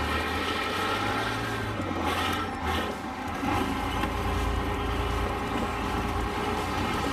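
Vintage tank's engine running as it drives up onto a sedan and crushes it, with brief crunching of the car's body about two seconds in.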